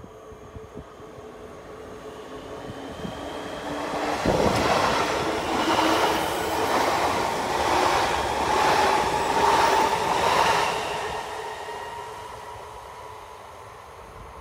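Electric train approaching and passing close by on the rails, with an even rhythm of pulses as the cars go past and a steady whine, then fading away.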